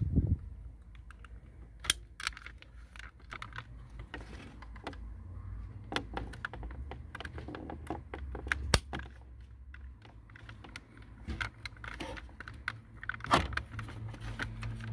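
Irregular small plastic clicks and rattles as the steering-column stalk and switch assembly and a plastic wiring connector are handled, with a low thump right at the start and a sharp click about nine seconds in.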